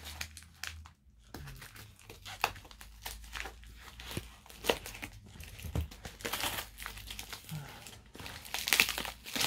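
Clear plastic wrap and packing tape on a small parcel crinkling and rustling as they are cut with scissors, then pulled apart by hand. The sound is a quick run of sharp crackles, loudest near the end.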